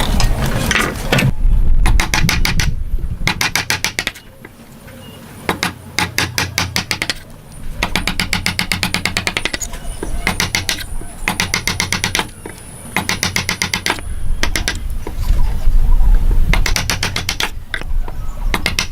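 Hand saw cutting wood in repeated strokes, about a dozen, each a fast rattle of teeth with short pauses between strokes.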